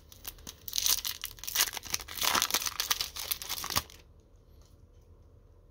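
A Topps NHL sticker pack's wrapper being torn open and crinkled by hand, a dense crackling that stops about four seconds in.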